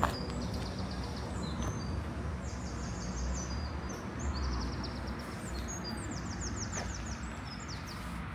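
Small songbirds singing: several short trilled phrases of rapid, high repeated notes, over a steady low outdoor rumble.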